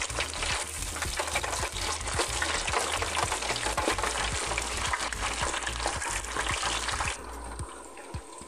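Chicken feet deep-frying in a deep fryer's basket of hot oil: a dense, continuous sizzle of pops and crackles that quietens about seven seconds in.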